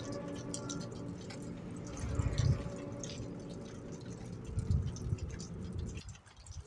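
A steady droning hum with several overtones, heard as a strange noise in the night sky. It cuts off suddenly near the end, and low rumbling surges swell twice under it.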